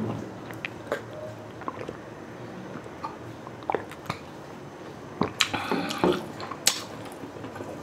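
A person drinking water from a glass, with small wet sips, swallows and mouth clicks. Louder clicks come between about five and seven seconds in.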